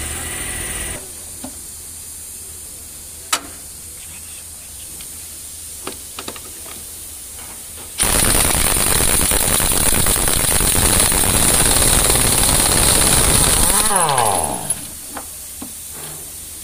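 Large pneumatic impact wrench hammering on a truck wheel nut for about six seconds, with a strong hiss of exhausting air, then spinning down with a falling whine when the trigger is let go. A few sharp clicks of the tool and socket come before it.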